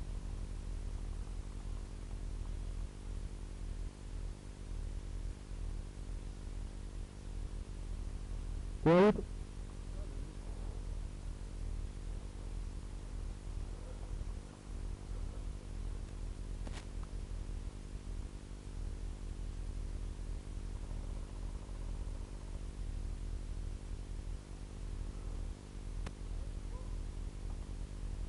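Steady low electrical hum and hiss from a small camera's own microphone, broken about nine seconds in by one short, loud shout from a person's voice, and a faint click a few seconds later.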